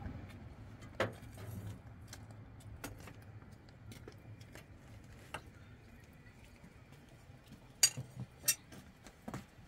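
Scattered sharp clinks and taps of metal and glass tableware, with the two loudest clinks close together about eight seconds in.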